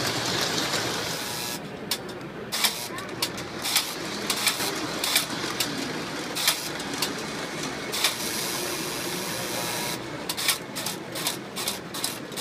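Model train running on its track: a steady whirring with irregular bursts of sharp clicking as the wheels cross rail joints and switches.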